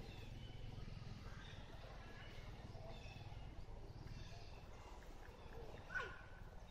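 Faint outdoor ambience: scattered short, high bird chirps over a low rumble. About six seconds in, a single short, sharp call that drops in pitch stands out as the loudest sound.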